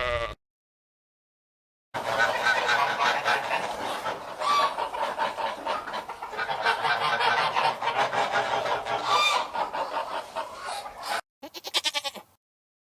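A flock of chickens calling over one another in a dense, continuous clamour lasting about nine seconds. It cuts off abruptly and is followed by a short bleat near the end.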